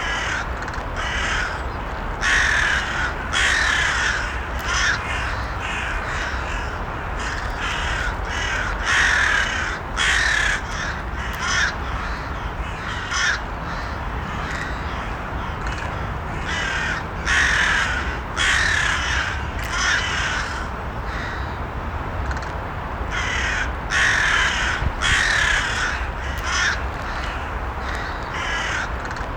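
Crows cawing, call after call in short runs every second or two, over a steady low rumble.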